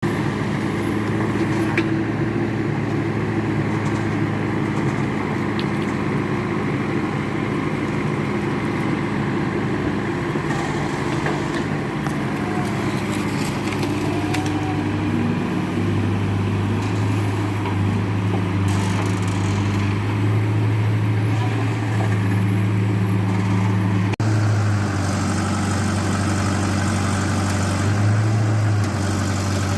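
JCB backhoe loader's diesel engine running steadily, its speed stepping up and down every few seconds, with a couple of brief sharp clicks.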